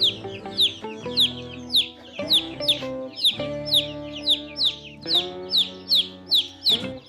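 Chickens giving short, high calls that fall in pitch, repeating about three times a second, over background music with sustained chords.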